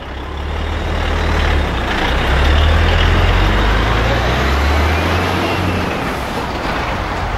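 Heavy truck with a container trailer driving slowly past at close range: the diesel engine's low rumble builds, is loudest a few seconds in, then eases off as it moves away.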